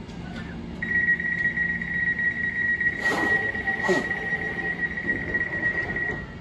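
Door-closing warning tone of a Class 345 Elizabeth line train: a steady high beep that starts about a second in and stops near the end, as the doors close. A low hum from the standing train runs underneath, with two brief noises around three and four seconds in.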